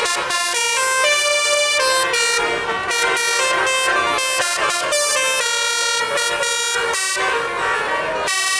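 Tour bus's 'telolet' musical air horn playing a tune: a run of loud held notes that change pitch, with a few short breaks between phrases.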